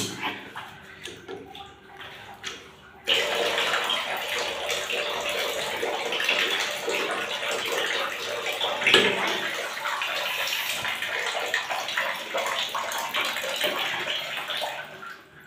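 Pliers clicking and scraping on the chrome wall mixer's fitting, then water starts running steadily about three seconds in and keeps running until shortly before the end.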